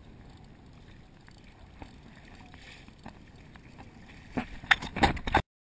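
Water lapping and trickling against a kayak hull as it is towed along by a hooked sailfish, with a few light ticks. Near the end comes a cluster of loud knocks and splashes, then the sound cuts off suddenly.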